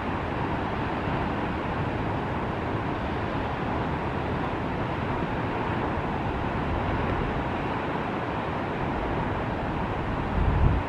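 Steady outdoor background noise, an even rushing hiss, with a brief low thump near the end.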